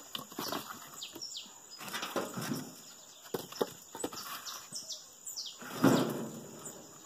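Firewood logs knocking and clattering together as they are taken out of a wheelbarrow and dropped onto a woodpile, a series of separate wooden knocks with a louder cluster near the end.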